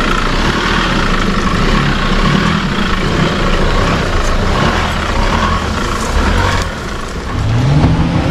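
Four-wheel-drive vehicle engine running under load on a rough track, revving up near the end.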